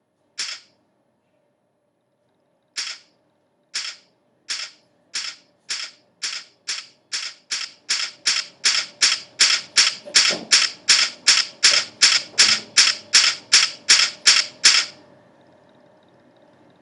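A series of short, sharp clicks that speed up, from single clicks a second or two apart to about three a second, then stop about three seconds before the end.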